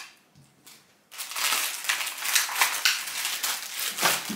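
Plastic packaging crinkling and crackling as a crumble tart is pulled out of its packet, starting about a second in.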